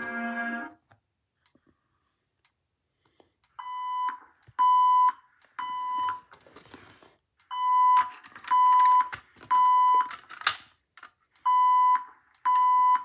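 Fire alarm speaker strobes sounding the temporal-3 evacuation tone, the alarm signal set off by a pulled pull station. The beeps are about half a second long, all at one steady pitch, and come in groups of three with a longer pause after each group. They start a few seconds in, after the music cuts out.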